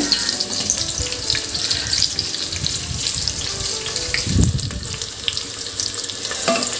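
Sliced onions and green chillies sizzling as they sauté in the inner pot of a Geek Robocook electric pressure cooker, with a dull knock about four seconds in and a wooden spatula stirring them near the end.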